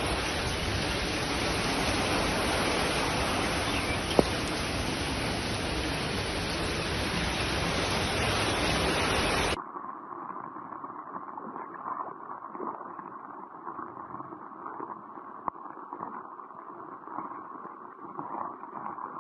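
Heavy rain pouring onto flooded street water, a loud even hiss with a single click about four seconds in. About halfway through it cuts abruptly to a much quieter, duller rain sound.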